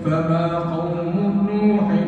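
A man's voice chanting a verse of classical Arabic poetry unaccompanied, drawing the syllables out in long, sustained melodic notes.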